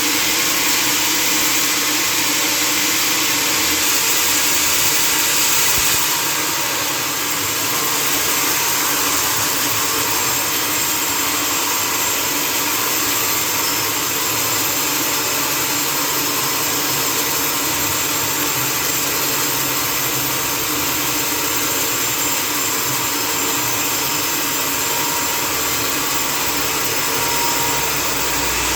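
Sawmill machinery running steadily, a loud, even mechanical noise with a slight change in tone about six seconds in.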